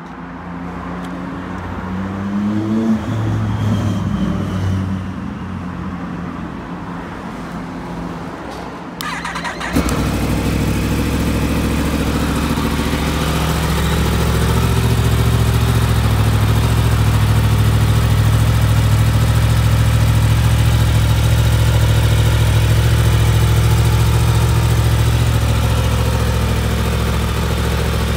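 Yamaha MT-10 SP's crossplane inline-four engine started about nine seconds in, then idling steadily through its Yoshimura Alpha exhaust. Before the start there is only a quieter low hum.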